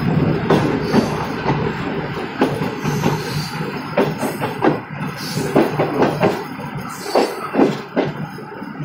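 A moving passenger train's wheels clattering over rail joints and points: irregular sharp knocks over a steady low rumble of the running train.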